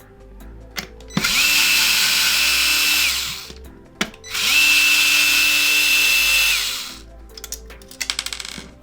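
Electric screwdriver with a T8 bit backing out two screws: two runs of about two seconds each, the motor whine rising as it spins up and dropping as it stops.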